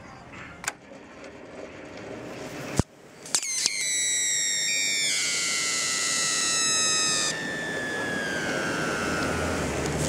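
2,000-volt current from a microwave-oven transformer passing through a hollow dandelion stem. It starts with a few sharp snaps about three seconds in, then a loud squealing whistle of several tones that slide slowly down in pitch. One tone cuts off about halfway through the whistle, and the rest fades away near the end.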